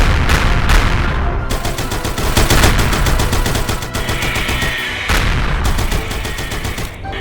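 Rapid gunfire sound effects: a loud run of many shots in quick succession over a low rumble.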